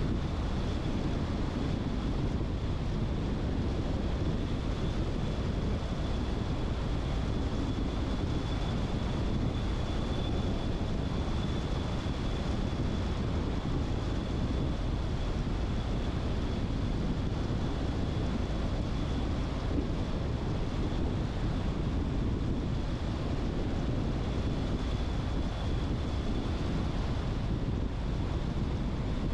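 A car driving, with steady tyre and wind noise and a faint high, steady whine over it.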